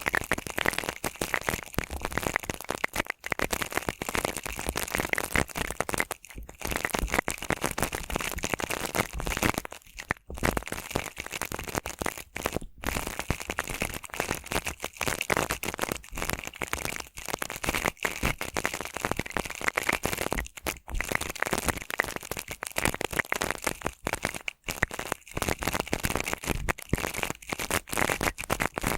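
Stiff brush bristles brushed over and over for ASMR, making a dense crackly scratching with brief breaks every few seconds between strokes.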